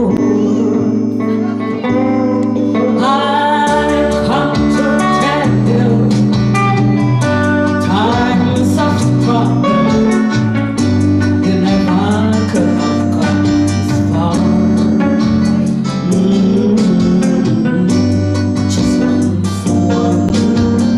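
Live music: a woman singing into a microphone, accompanied by an amplified electric guitar, with held low notes changing every second or two underneath.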